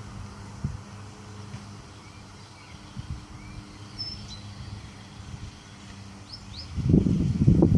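Lawn mower running steadily with a low, even hum while a few small birds chirp. About seven seconds in, a loud low rumbling starts.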